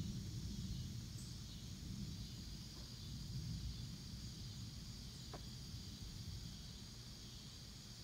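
Steady high-pitched insect chorus over a low rumble that slowly dies away, distant thunder rolling off. A single brief chirp comes about five seconds in.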